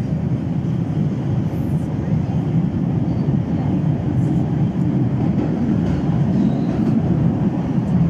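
MBTA Red Line subway train running along the track, a steady loud rumble heard from inside the car.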